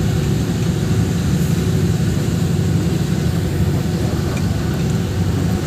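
Steady engine and road noise heard from inside a moving vehicle, mostly a low rumble that holds even throughout.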